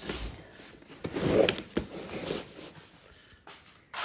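A large cardboard product box being turned and slid by hand: irregular scraping and rubbing of cardboard with a few sharp knocks, loudest about a second in.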